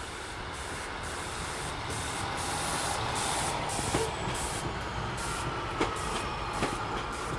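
Two-car Class 150 Sprinter diesel multiple unit moving out past the platform: a steady rumble and hiss that swells to a peak about halfway through, with a few sharp clicks in the second half.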